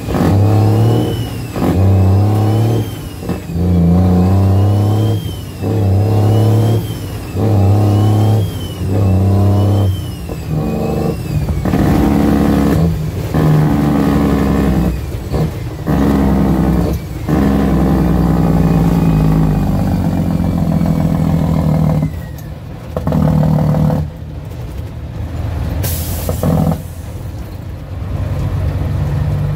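Cummins L10 diesel of an International truck heard from inside the cab while driving, its note rising and falling in repeated surges for the first ten seconds or so, then running steadier. A short sharp air hiss comes near the end.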